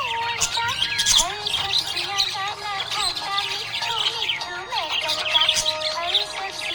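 Budgerigar chirping and warbling continuously in quick, high twitters, with background music.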